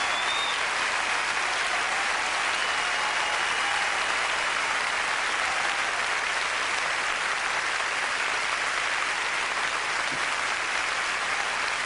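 Large concert audience applauding steadily after a song, with a couple of brief high whistles in the crowd near the start and a few seconds in.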